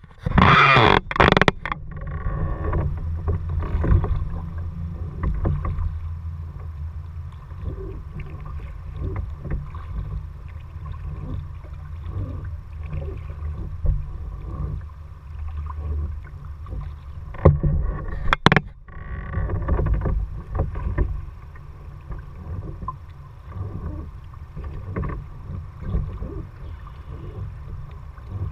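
Kayak being paddled: water sloshing and splashing with the paddle strokes over a steady low rumble. There are a few loud sharp knocks in the first second or two and again about two-thirds of the way through.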